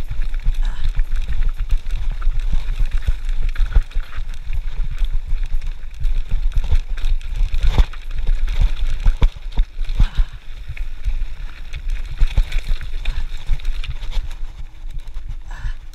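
Specialized Stumpjumper FSR mountain bike rolling down a rough dirt trail, heard from a camera mounted on the bike: a loud, steady low rumble with frequent knocks and rattles as the bike runs over the ground. The rumble eases a little near the end.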